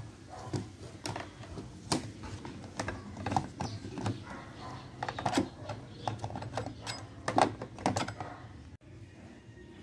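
Irregular plastic and metal clicks and knocks as a DeWalt DW5200 chainsaw's yellow plastic clutch cover is handled and pressed onto the bar, with a cluster of louder knocks about three-quarters of the way through.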